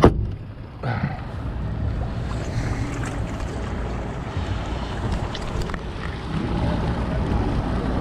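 A sharp knock right at the start, then a steady low rumble of wind on the microphone mixed with boat outboard motors running on the water.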